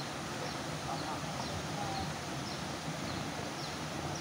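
A small bird calling in a run of short, high, falling chirps, about two a second, over a steady background hiss.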